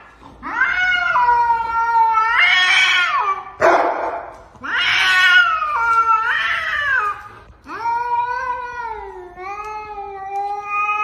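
Domestic cats caterwauling in a standoff: long, wavering yowls that rise and fall in pitch, in three drawn-out stretches, with a short hiss about four seconds in.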